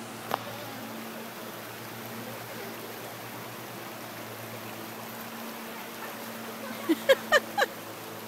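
Steady rushing of a shallow flowing creek. There is one sharp click about a third of a second in, and near the end four quick, loud, pitched calls, each falling slightly in pitch, about a quarter second apart.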